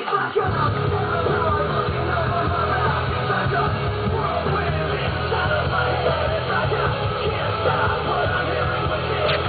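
Loud rock music with yelled vocals, starting just after a brief gap at the very beginning.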